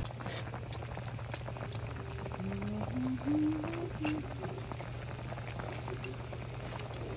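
Coconut milk simmering with tilapia in a wok over a wood fire, bubbling and popping steadily.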